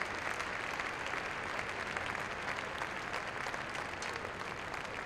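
Large arena crowd applauding steadily, a dense patter of clapping that eases off slightly toward the end.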